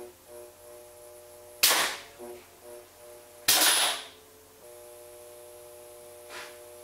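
Air-operated contactors of a Westinghouse HL electric railway control slamming in and out as the master controller is worked: two sharp clacks about two seconds apart, each trailed by a short hiss. A steady hum runs between them.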